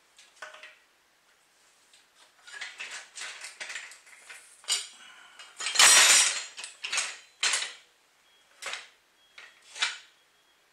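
Metal parts of a Hangkai 3.6 hp outboard motor knocking, clinking and rattling as its shaft housing is handled and the parts are fitted back together on a workbench. The knocks come irregularly, with the loudest clatter, about half a second long, around six seconds in.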